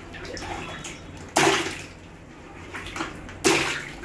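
Two water balloons bursting under a squeezing hand in a bucket of water, each a sharp pop followed by a short splash, about two seconds apart.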